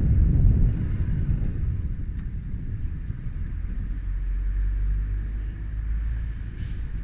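Yamaha motorcycle engine running under wind rumble on the camera's built-in microphone, easing off as the bike slows to turn through an intersection, its steady low engine note clearer in the second half. A brief hiss near the end.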